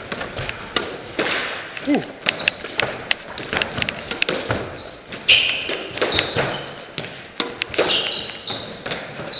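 Squash rally: the ball strikes rackets and the court walls in a quick run of sharp cracks, with short high squeaks from shoes on the wooden floor.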